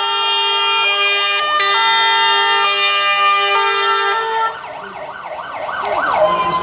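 Fire engine sirens. A loud two-tone siren on a passing MAN fire engine steps between its tones about once a second, then cuts off about four and a half seconds in. A quicker up-and-down sweeping siren from the following fire engines is left, growing louder near the end.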